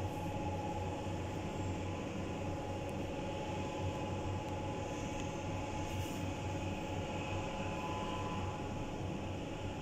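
Steady machine hum and hiss with two faint steady tones, unchanging throughout.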